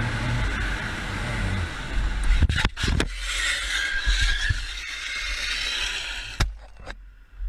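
Motorcycle engine running at road speed with wind noise, then a cluster of hard impacts about two and a half seconds in as the bike is hit by a car. About three seconds of scraping noise follow as the rider and helmet camera slide along the tarmac, ending in a knock.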